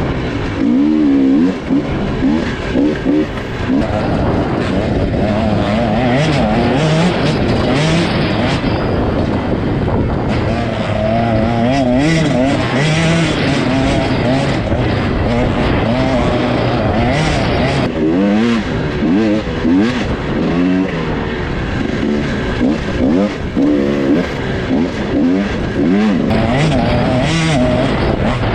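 Two-stroke Husqvarna dirt bike engine revving hard and easing off over and over, its pitch rising and falling with throttle and gear changes as it is ridden through sand.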